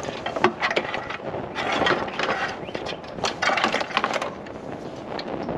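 Rustling and scattered clicks as an engine-bay wiring harness and rubber hoses are handled and shifted against the car's body panels, in irregular bursts.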